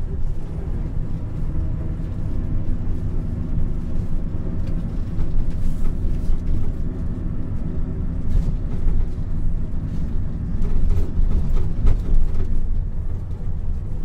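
Steady low road and engine rumble from inside a moving taxi's cabin. It swells a little near the end, and a few faint knocks come through.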